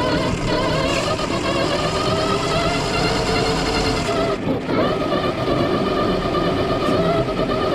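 FPV drone's electric motors and propellers whining as it flies, the pitch drifting with the throttle and dipping briefly about four and a half seconds in.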